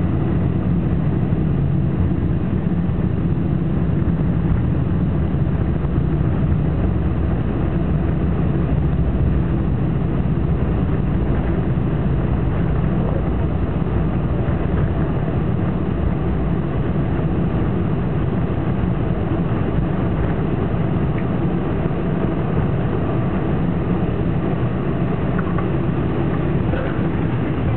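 Cabin noise of a Boeing 747-400 rolling down the runway after landing: a loud, steady, low rumble from the engines, the airflow over the raised spoilers and the wheels on the runway.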